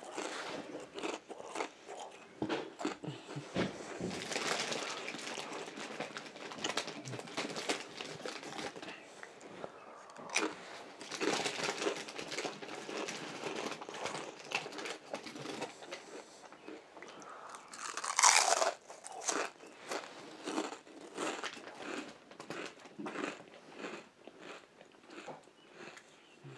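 Chips being bitten and chewed close to the microphone: a run of crunchy, crackling bites and chewing. A short louder noise comes about eighteen seconds in.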